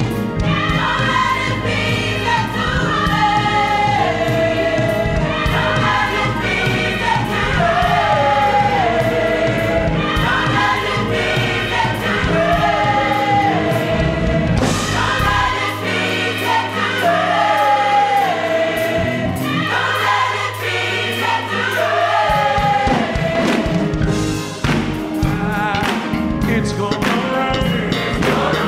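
A large gospel choir sings in parts with keyboard accompaniment, returning to the same falling phrase every two to three seconds. The bass drops out for several seconds midway, then comes back.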